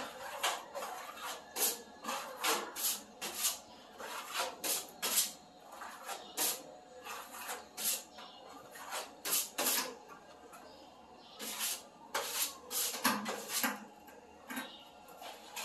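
Hand plastering trowel scraping skim coat across a concrete ceiling: short scraping strokes at an uneven pace, about one or two a second.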